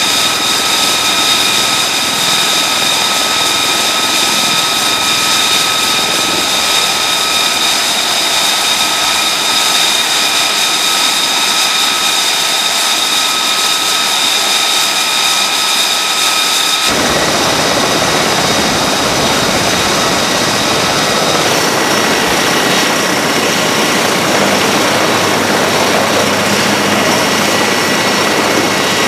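Aircraft turbine engines running: a steady high-pitched whine with several held tones over a constant rush. About two-thirds through the sound changes abruptly to a fuller, lower rushing noise from an MV-22 Osprey tiltrotor turning its rotors close by.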